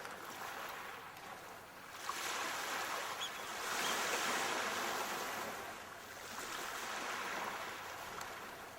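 Ocean waves washing in: a rushing surge that swells up, peaks and eases, then builds again and fades near the end.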